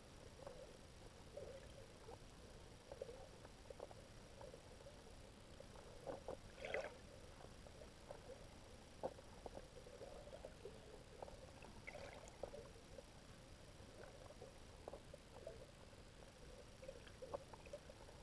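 Faint underwater ambience heard through a camera's waterproof housing: a low muffled hum with scattered soft clicks and pops. A short cluster of louder pops comes about a third of the way in, and another about two thirds in.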